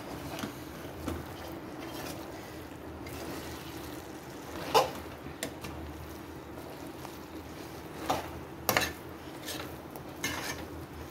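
Steel spatula stirring and scraping idli fry in a pan, with a few sharp clinks of metal on the pan, the loudest near the middle and a cluster more towards the end.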